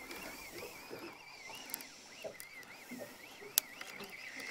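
Faint whine of a fishing reel being cranked as a hooked fish is wound up, the pitch rising and falling in short arcs with the turns of the handle. One sharp click comes about three and a half seconds in.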